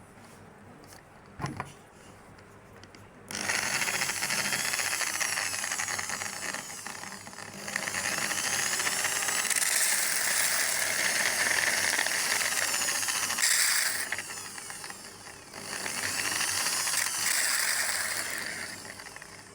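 Electric drill converted into a grinder, running in three spells with a loud hissing grinding noise and a whine that wavers up and down in pitch.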